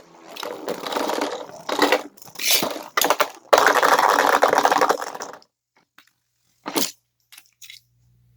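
Beyblade spinning tops clashing and grinding against each other and the plastic stadium. The noise is loudest just before it stops, about five seconds in. A single sharp click follows a little later.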